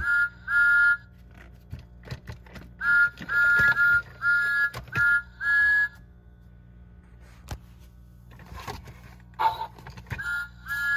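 Electronic whistle of a battery-powered motorized Thomas & Friends toy train, played through its small speaker as a series of short two-note toots: two at the start, a run of about five, then two more near the end. A few light clicks from the plastic toys being handled.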